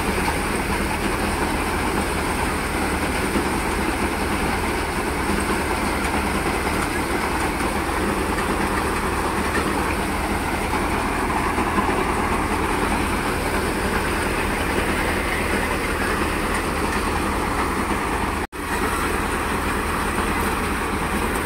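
Tractor-powered paddy thresher running steadily under load as rice straw is fed into it: a continuous mechanical din from the threshing drum, driven by a Massey Ferguson 241 DI tractor's diesel engine. The sound cuts out for a split second near the end.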